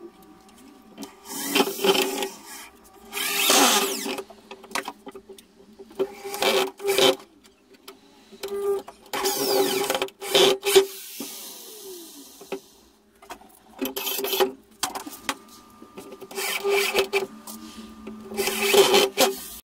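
Corded electric drill running in repeated short bursts, about a second or less each, as screws are driven into pallet-wood boards, its motor hum rising with each trigger pull.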